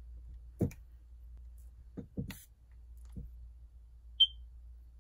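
Plastic skincare bottle being handled, giving a few scattered small clicks and knocks over a low steady hum. A short high-pitched ping about four seconds in is the loudest sound.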